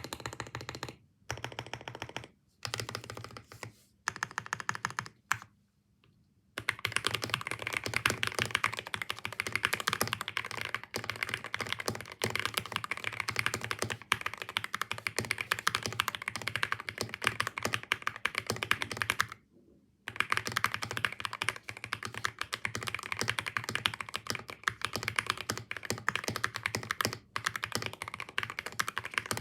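Typing on a Sugar65 mechanical keyboard with Durock POM Piano switches and Finalkey keycaps: a few short bursts of keystrokes separated by gaps at first, then fast, continuous typing that pauses briefly about two-thirds of the way through.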